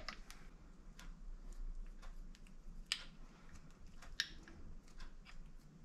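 Faint, scattered light clicks and taps of a Yamaha Banshee's transmission gears and shift forks being handled and turned over while being checked for the cause of a shifting problem.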